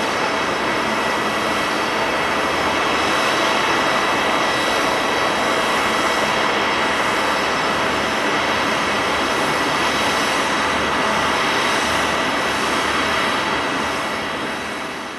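Boeing 777-300ER's twin GE90-115B turbofans running at taxi power as the airliner rolls past: a steady rush with a high whine of several held tones. The sound fades out near the end.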